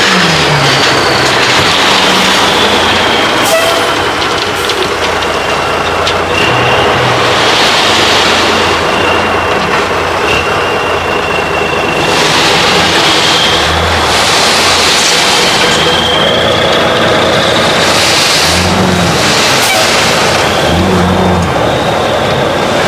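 Dump truck running as its hydraulic hoist raises the bed, with gravel sliding and pouring out of the tipped body. A high whine drifts slowly up and down in pitch over the steady noise.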